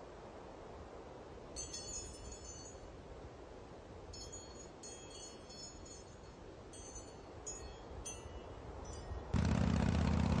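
Wind chimes tinkling in several short clusters over a steady faint wind hiss. Near the end a sudden loud low rumble cuts in.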